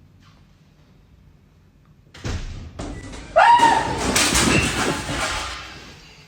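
A door slam or thud about two seconds in, then a loud, high shriek that rises and holds for about two seconds: a startled scream of fright.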